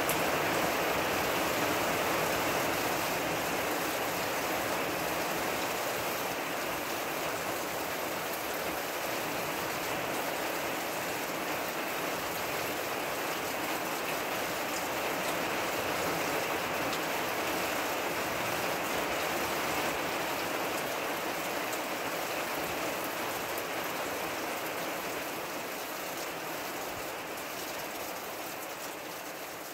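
Steady rain shower falling, an even hiss of many drops that grows a little quieter toward the end.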